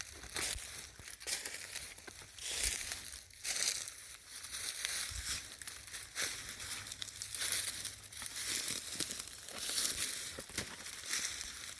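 Footsteps crunching through leaf litter and pine needles on the forest floor, a step about every second.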